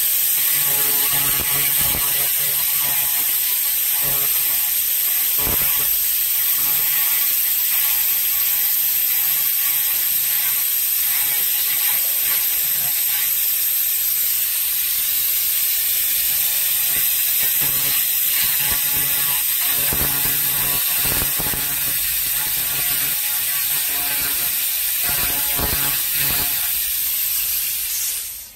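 300 W pulsed laser cleaning head ablating grime and rust from a cast metal housing: a loud, steady, high crackling hiss that cuts off suddenly just before the end as the beam stops.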